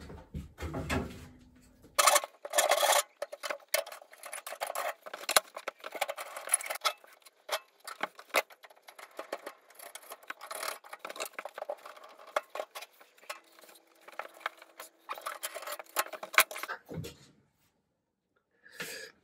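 A hand tool scraping and rubbing on wood in quick, irregular strokes, as wood is shaped by hand with an abrasive tool. The strokes start about two seconds in and stop about seventeen seconds in.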